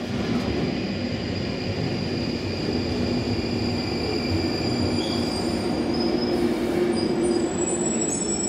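Northern line tube train (1995 stock) running into the platform and slowing to a stop, with a heavy rumble of wheels on rail and a few high, thin squeals in the last few seconds as it brakes.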